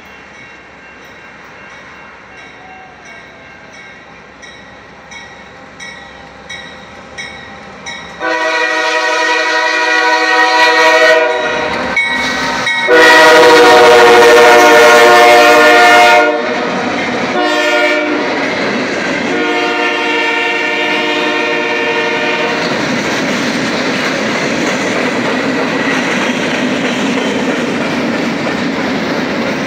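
Norfolk Southern diesel freight train approaching and passing at close range. A rhythmic clicking grows louder. Then the locomotive's air horn sounds in a series of long and short blasts, loudest as the locomotive goes by, and the train ends in the steady rumble and rattle of freight cars rolling past.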